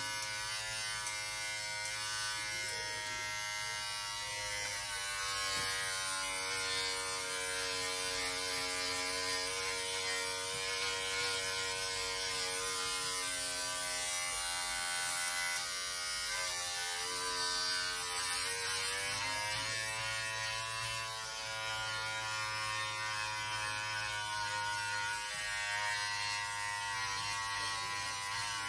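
Braun 6-in-1 electric shaver running continuously with a steady buzzing hum. Its pitch sags and recovers a few times.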